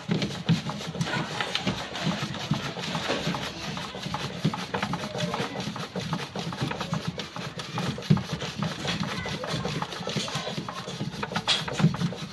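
Rapid, continuous gritty scraping and clicking as a washing machine's check nut is turned off its thread by hand; the thread is stuck with adhesive bond, which makes it stiff to undo.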